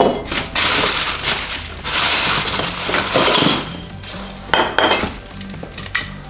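Motorcycle rear-suspension parts, aluminium cover sleeves and steel coil springs, being lifted out of a cardboard box and set down on a wooden workbench. The box and its packing rustle for the first few seconds, then the metal parts clink and knock several times near the end.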